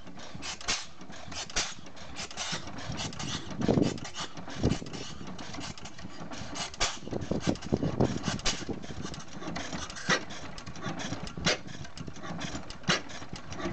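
6 HP Amanco stationary oil engine starting up and running, firing in sharp, unevenly spaced beats a few times a second, with heavier low thuds around four seconds in and again around eight.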